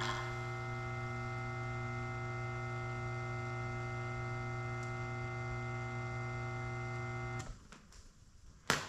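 Bare blower motor from a Mr. Heater Big Maxx garage heater, run on the bench with no fan blade: a steady electric hum with no rattle or grinding, which cuts off about seven seconds in. A sharp click follows near the end.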